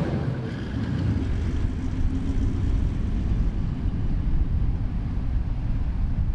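Toyota LandCruiser 79's V8 turbo-diesel driving away across soft beach sand: a steady low rumble, with wind buffeting the microphone.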